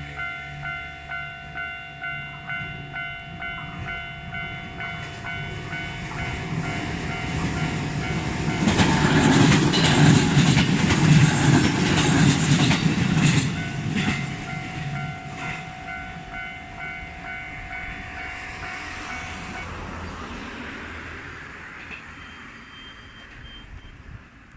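A Japanese railway level-crossing warning bell rings with a steady repeating ding while a train passes, the train loudest from about nine to fourteen seconds in. The bell stops about twenty seconds in and the train sound fades away.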